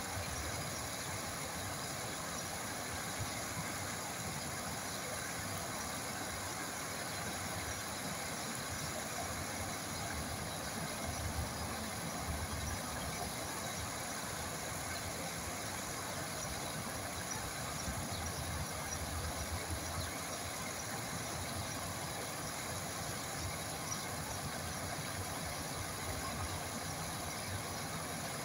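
Water running steadily, an even continuous noise with a low, uneven rumble beneath it.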